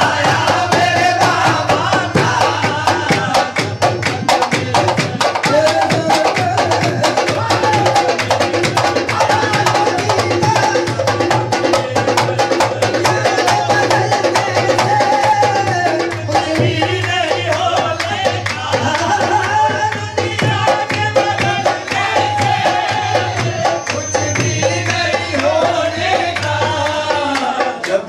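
Qawwali music: fast tabla drumming under a melody line that runs on steadily.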